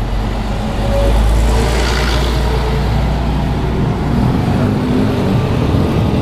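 City street traffic with a bus engine running close by, its low rumble loudest in the first couple of seconds and then easing into a steady traffic din.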